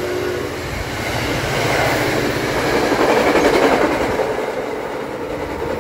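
NJ Transit diesel push-pull commuter train rushing past at speed, its coach wheels clattering on the rails in a loud, steady roar. The tail of the horn cuts off just at the start, and the roar swells about three seconds in as the last coaches and cab car go by, then eases as the train moves away.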